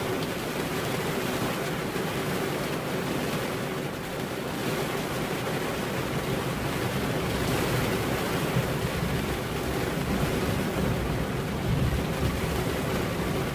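Steady rain, with a low rumble of thunder swelling through the second half.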